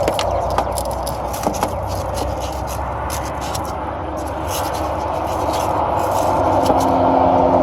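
Light scraping and clicking as copper tubing and its flare-nut fittings are handled, over a steady background of vehicle noise that swells with an engine hum near the end.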